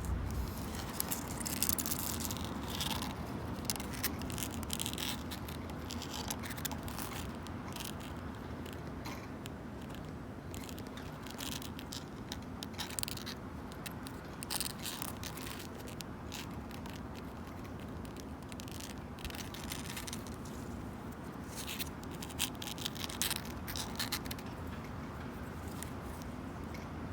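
Long natural fingernails scratching and clawing at a wooden bench: irregular bursts of dry scraping strokes, some in quick clusters.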